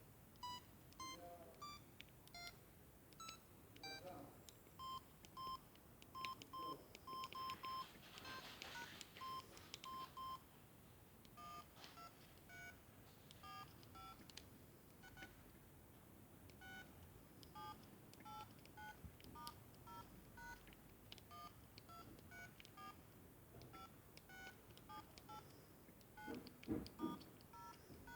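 A Samsung SGH-X210 mobile phone playing a ringtone through its small speaker. It is a faint melody of short electronic beeping notes, about two a second, that changes pitch from note to note. A few soft low knocks come near the end.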